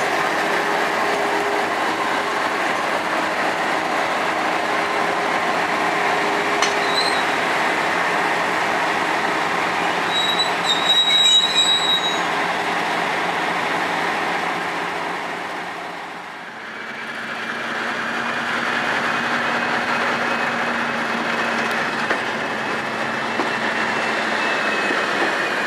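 Class 56 diesel locomotive running as it moves slowly along a station platform at the rear of a passenger train, with a short high wheel squeal about eleven seconds in. After a brief dip two-thirds of the way through, a steady engine hum with a faint whine that rises slightly.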